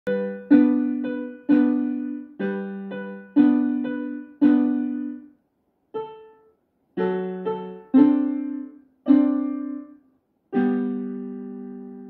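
61-key electronic keyboard on a piano voice, played slowly: single notes and two-note chords struck about once a second, each fading away. There is a brief pause about five seconds in, and the last chord, struck near the end, is held and dies away slowly.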